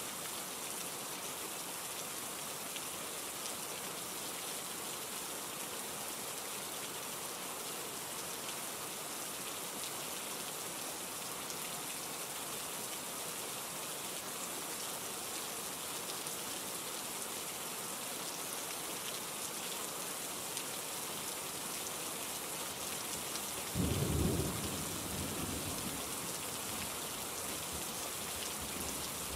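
Steady rain falling. About three quarters of the way through comes one short, low rumble of thunder that swells suddenly and fades over a couple of seconds.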